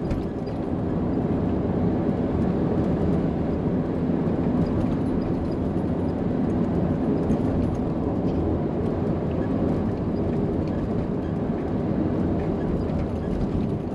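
A 1989 Chevrolet C2500 pickup heard from inside the cab while driving: steady engine and tyre road noise. Faint scattered rattles come from loose items jiggling in the cab over a bumpy road.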